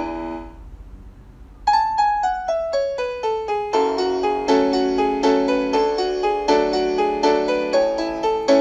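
Piano music: a chord dies away, then after a short pause a quick descending run of single notes, followed by repeated pulsing chords.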